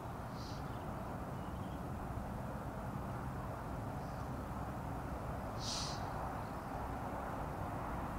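Steady wind noise buffeting the microphone, with two brief high-pitched sounds over it: a faint one about half a second in and a louder one just before six seconds.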